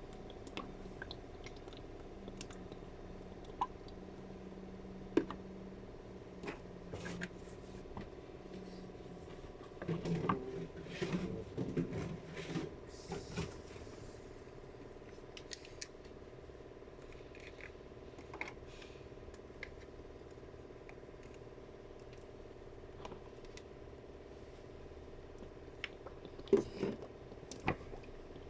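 Scattered light clicks and handling knocks over a steady background hum, with a busier run of knocks and rustling about ten seconds in and again near the end.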